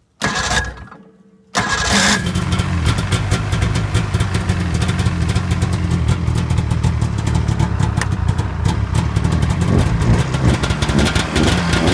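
Cold start of a 2000 Polaris Indy 600 XC snowmobile on choke: the new electric starter cranks for about a second, the two-stroke twin catches about a second and a half in, then runs steadily.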